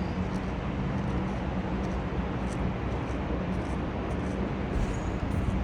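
Steady machinery noise: a constant rushing hum with a low droning tone underneath, unchanging throughout.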